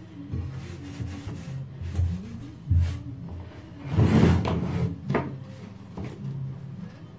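A cloth rubbing on the metal frame of a wall clock movement, and the frame scraping and knocking on a wooden workbench as it is handled. The loudest scrape comes about four seconds in, followed by a couple of sharp knocks.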